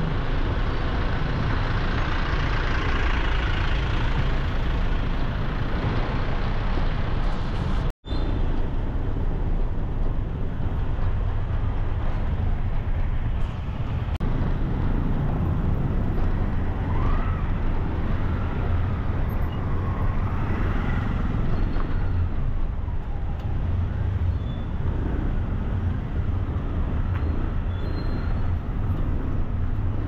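Steady road traffic noise with a strong low rumble from passing vehicles. The sound cuts out for an instant about eight seconds in.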